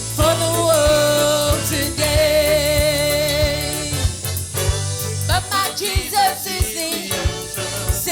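Live gospel worship song: a singer holds long notes with vibrato over a band with bass and regular drum hits.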